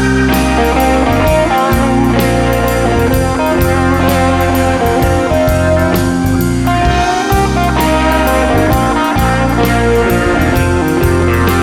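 Blues-rock band playing an instrumental passage with an electric guitar lead over bass and drums.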